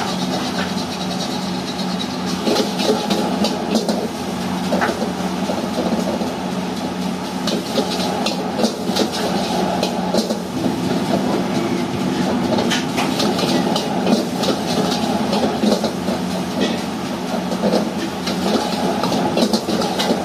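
A metal ladle scraping and clanking against a wok again and again as rice is stir-fried and tossed, over the steady roar of the wok burner and the stall's electric fan.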